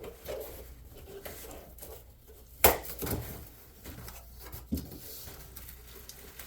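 Handling noises as a replacement laptop screen is taken out of its cardboard box: light scuffs and rustles, with one sharp knock about two and a half seconds in and a smaller one near five seconds.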